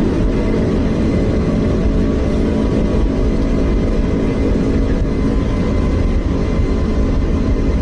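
Passenger jet airliner's engines at takeoff power: a loud, steady rumble with a thin high whine running through it.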